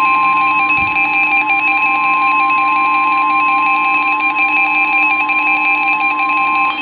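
NOAA Weather Radio warning alarm tone: one long, loud, steady 1050 Hz beep from the weather radio's speaker that cuts off near the end, with a fainter warbling electronic tone under it. The tone signals that a warning broadcast follows, here a severe thunderstorm warning.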